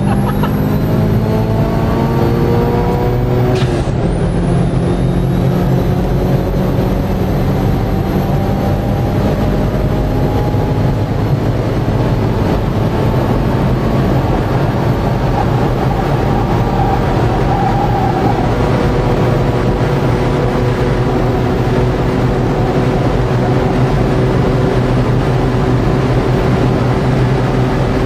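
Mitsubishi Lancer Evolution IX's turbocharged 2.0-litre four-cylinder at full throttle, heard from inside the cabin. The revs climb, drop with a gear change about four seconds in, then rise slowly and steadily in top gear under loud wind and road roar.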